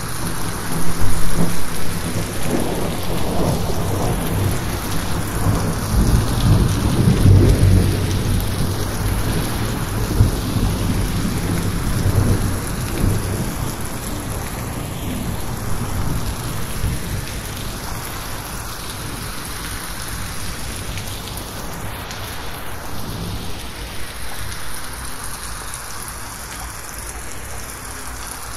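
Heavy rain falling steadily on a roof, with a long roll of thunder rumbling underneath. The thunder is loudest in the first half and fades away after about 13 seconds, leaving the steady rain.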